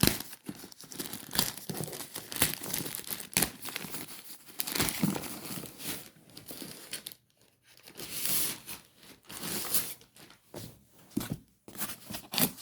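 Packaging being torn open by hand and crumpled: irregular tearing and crinkling with sharp crackles, easing off briefly about seven seconds in.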